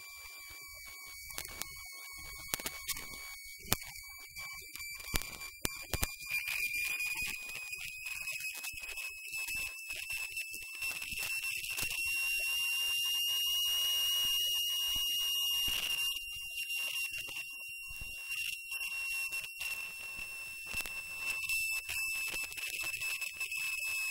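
A continuous high-pitched whine with overtones that slowly drifts up in pitch and back down, with scattered sharp clicks in the first few seconds.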